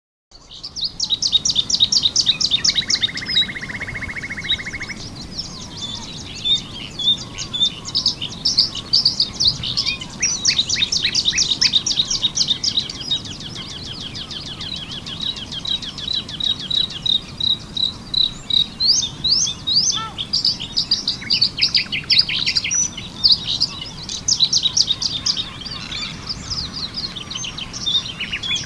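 Male bluethroat singing a fast, varied song of rapid repeated high notes and trills, with a buzzy trill near the start. A common nightingale sings in the background.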